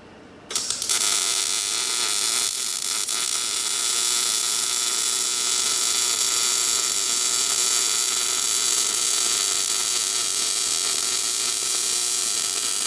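Electric arc welder laying a long continuous bead: a steady crackling hiss that starts about half a second in after a couple of short stutters and stops abruptly.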